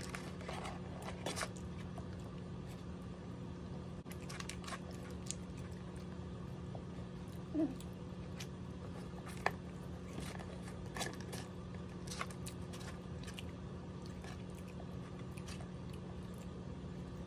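Close-up eating sounds: scattered crisp bites and chewing of fried chicken and French fries, with a few sharp clicks of a fork, over a steady low hum. A short low sound stands out about seven and a half seconds in.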